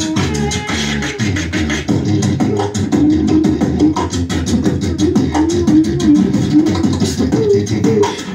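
Several beatboxers layering a beat together through handheld microphones: a fast, steady run of sharp mouth clicks and snares over hummed bass lines that glide up and down.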